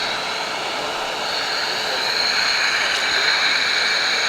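Miele Triflex HX1 cordless stick vacuum motor running on maximum with its inlet on a suction gauge: a steady rush of air with a high whine that rises slightly and grows about two seconds in.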